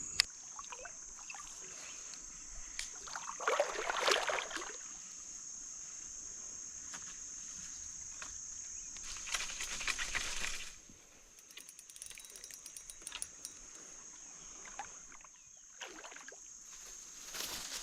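Steady high-pitched chirring of crickets or other insects, with two louder bouts of noise about four and ten seconds in.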